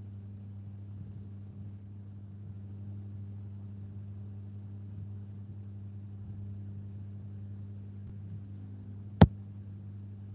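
Steady low electrical hum, with a single sharp click about nine seconds in.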